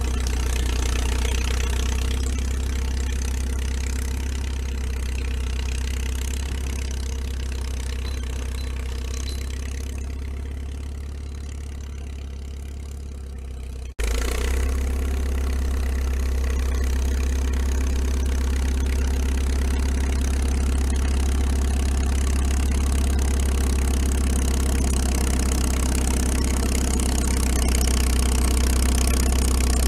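1940 International Harvester T-9 crawler tractor's engine running steadily as it tows a snow drag. It fades as the crawler moves off, then after a sudden cut about halfway it is close and louder, growing a little louder near the end.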